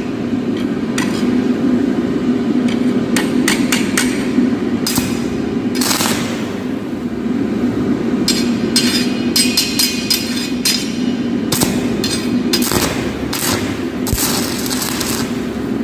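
Stick (MMA) arc welding: an electrode struck against a steel angle, crackling and sputtering in short irregular bursts as the arc catches and breaks, with a few longer stretches of arcing. A steady low hum runs underneath.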